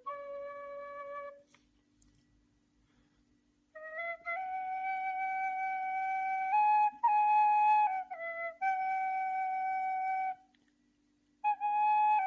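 Nay reed flute playing a slow melody of long-held notes that move up and down in small steps. There is a pause of about two seconds near the start and a shorter one near the end.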